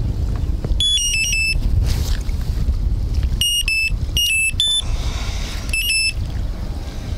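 Electronic bite alarm on a rod pod beeping in three short runs of beeps, each dropping slightly in pitch, as the fishing line is moved across its sensor while an indicator is fitted to the line. A low wind rumble on the microphone runs underneath.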